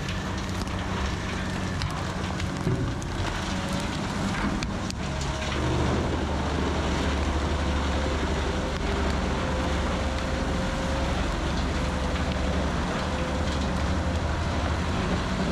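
Heavy diesel machinery running steadily under a dense hiss, growing louder and deeper about five and a half seconds in.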